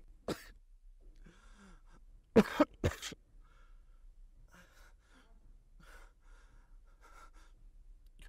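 A man coughing: one cough just after the start, then three loud coughs in quick succession about two and a half seconds in, followed by faint heavy breaths.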